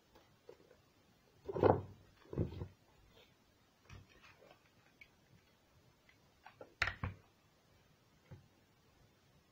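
Handling noise from a cardboard tissue box and craft pieces being moved and set down on a table: a few dull knocks, the loudest two about one and a half and two and a half seconds in and another near seven seconds, with light taps between.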